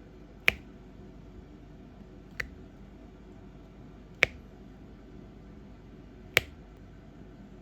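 Four sharp clicks about two seconds apart: a diamond-painting pen tapping resin drills down onto the sticky canvas.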